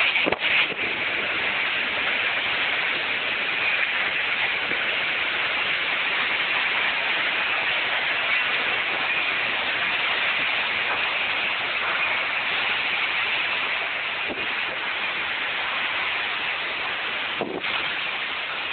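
Torrential, wind-driven rain of a severe thunderstorm: a steady, dense hiss that does not let up.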